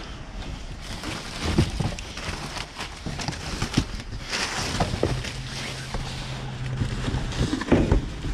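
Rummaging through trash in a dumpster: plastic garbage bags rustling and crinkling, with irregular knocks and clunks of objects being moved. A low steady hum comes in for a couple of seconds midway.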